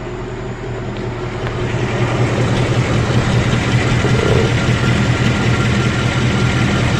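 Ford Mustang GT's 5.0-litre Coyote V8, a replacement engine just after its first oil change, idling steadily and growing louder over the first few seconds. It carries a tick that the owner likens to a ruler tapping on a metal cable and calls not a small noise.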